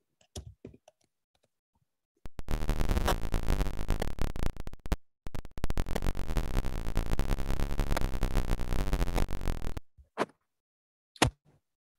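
Buzzy, glitchy computer-synthesized sound from a live-coded program that steps through a wavetable, starting about two seconds in, dropping out briefly near the middle, and stopping near the end. Light keyboard clicks come just before it and a couple of sharper key clicks after it.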